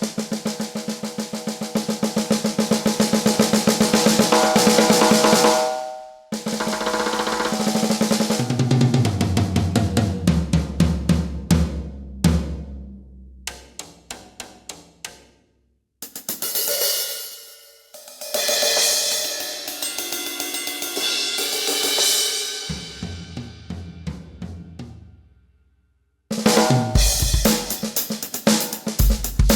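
Medeli MZ928 electronic drum kit being played in several short passages: a fast roll building in loudness, then lower drums stepping down in pitch and fading out. Near the end come loud full-kit hits with cymbals and bass drum. The passages are split by brief silences.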